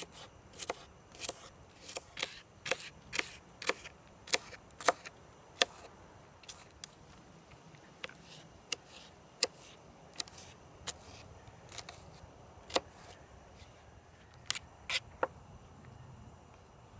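Knife chopping stuffed, bacon-wrapped jalapeños on a cutting board: sharp taps of the blade on the board, about two a second at first, then slower and more scattered, with a quick pair near the end.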